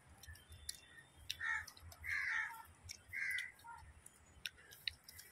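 Crow cawing three times, about one and a half to three and a half seconds in, the middle call the longest.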